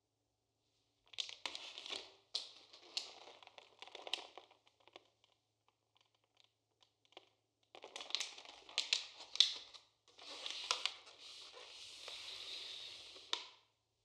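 Plastic packaging crinkling with sharp clicks and taps, in two spells: a plastic pouch of steamed black beans, then a clear plastic egg carton, handled and set down on a wooden table.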